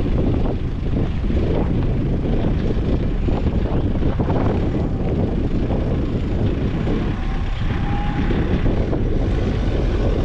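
Steady rumble of a moving vehicle with road and wind noise.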